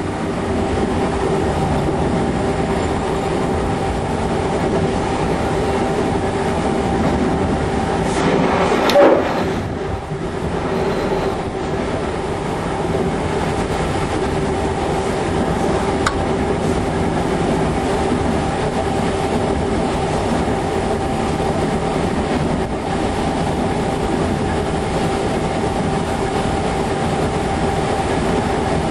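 Diesel-electric locomotive running along the line, heard from the cab: steady engine and wheel-on-rail noise with a constant hum. A brief louder burst comes about nine seconds in.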